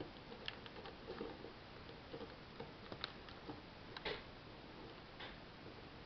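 Plastic Lego bricks of a puzzle box clicking and tapping as fingers push and slide its parts: faint, irregular clicks, the loudest about four seconds in.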